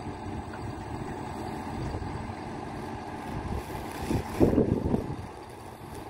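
Cotton baling press running, a steady mechanical rumble with a louder stretch about four seconds in.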